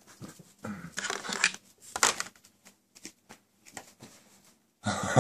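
Scattered rustling with a few light clicks and knocks, then a person's voice starts near the end.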